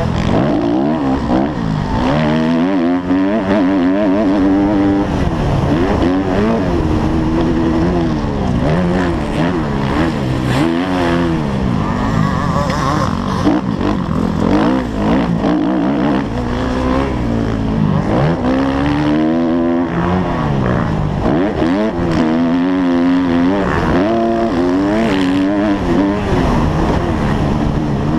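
Motocross dirt bike engine heard onboard, revving hard and easing off over and over, its pitch climbing and dropping as the rider accelerates and backs off around the track. Wind rushes over the microphone.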